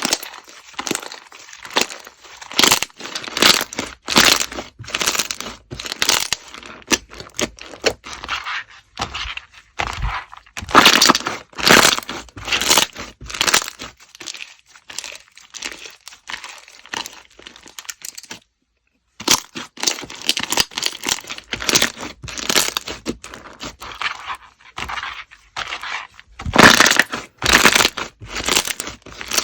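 Slime being squeezed and pressed by hand, giving dense, irregular crackling and crunching pops. The sound cuts out for about half a second a little past the middle, then carries on.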